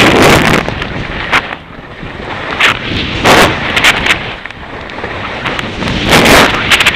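Wind rushing and buffeting over the microphone of a camera moving fast down a ski slope, with loud surges of ski and board edges hissing and scraping through snow.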